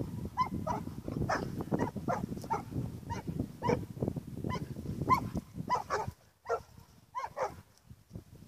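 Young dog barking repeatedly at a ram, about two to three short barks a second, with a brief pause about six seconds in before a few more.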